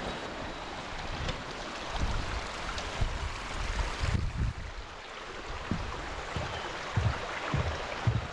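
Water rushing steadily down a stream of small waterfall cascades, with irregular low bumps of wind or handling on the microphone.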